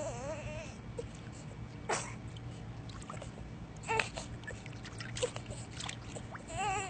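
Pool water lapping around a floating baby, with a few small splashes. A short high wavering vocal sound comes at the start and again near the end.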